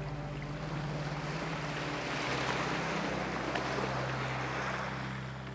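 A small wave washing up a pebble beach. The hiss of surf swells about two seconds in, peaks in the middle and eases off as the water draws back.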